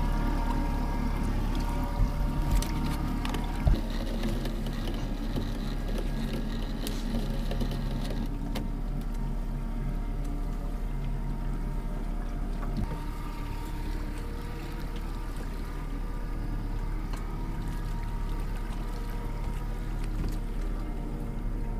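Boat's outboard motor running steadily at trolling speed. About two to four seconds in there are a few sharp knocks.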